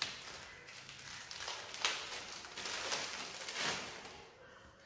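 Clear plastic packaging crinkling as it is handled and opened, in a run of crinkles that fades out near the end.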